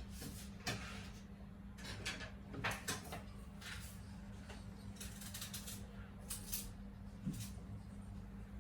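Kitchen handling noises: scattered light clicks, knocks and short scrapes of utensils and containers being moved, over a steady low hum.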